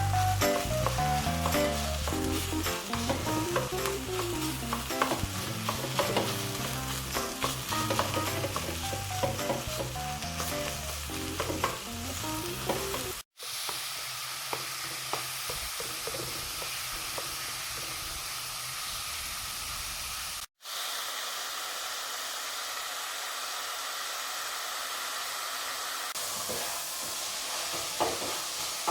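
Onions and beef mince sizzling as they fry in a pan for the mince curry. Background music with a beat plays over the sizzling for the first half, then the frying carries on alone. Two brief dead-silent gaps fall about midway.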